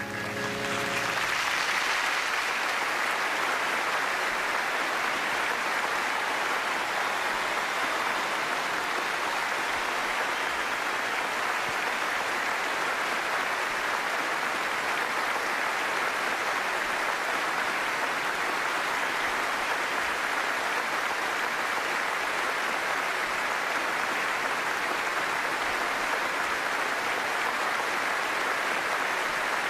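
Large theatre audience applauding steadily in a long ovation, as the last notes of music die away about a second in.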